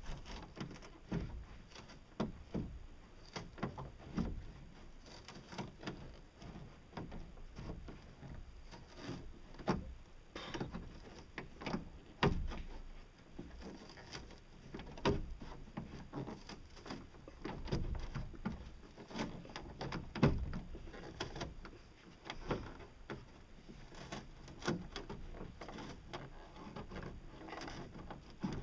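A hand tool (snips or pliers) cutting and bending the edge of a thin sheet panel: irregular clicks and crunches of the jaws, with the sheet rattling and flexing.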